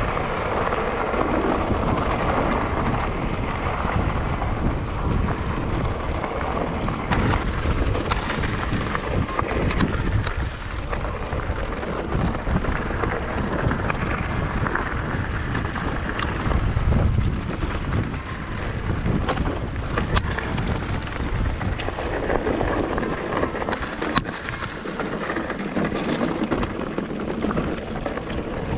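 Wind buffeting the microphone over the rolling noise of a mountain bike's tyres on a rough, stony track, with frequent sharp clicks and knocks.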